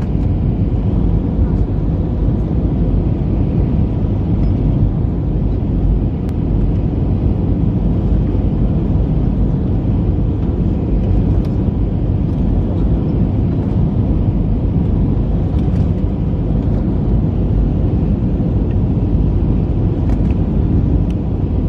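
Steady rumble of a jet airliner's engines and airflow heard inside the cabin on its low approach to land, with faint steady hums over the deep noise.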